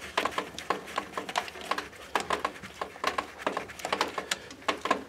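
Irregular light clicks and ticks, several a second, from hand tools working on the last bolts of the automatic gearbox valve body under a Mercedes W140 600 V12.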